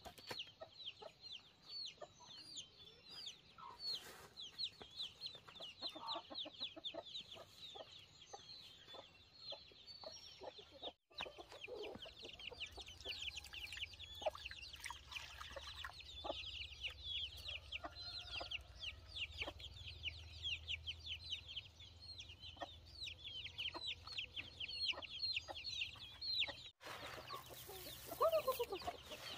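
Chickens calling: a steady stream of short, high chirps, several a second, with louder, lower calls near the end.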